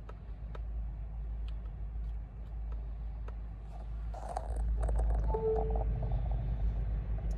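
Steady low hum inside a stationary car's cabin with faint ticks, and a short electronic beep about five seconds in.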